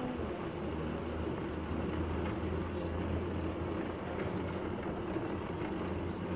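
Philippine motor tricycle's motorcycle engine running steadily while riding along a paved road, a constant low hum with road and wind noise over it.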